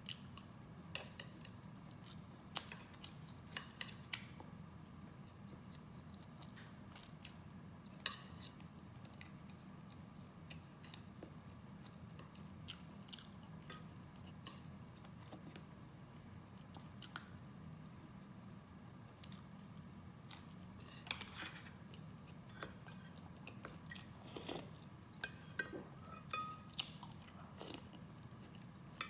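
Close-miked eating sounds: chewing, with wet mouth clicks and smacks scattered through, over a steady low hum. Near the end the clicks come closer together as she sips from a metal spoon.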